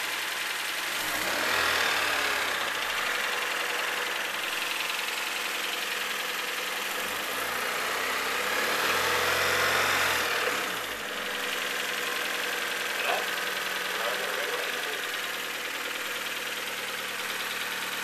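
Turbocharged Honda Civic EG engine running with a ticking noise, which the owner suspects comes from the valvetrain in the head or from a spun bearing. The engine speed rises and falls twice, about two seconds and about nine seconds in.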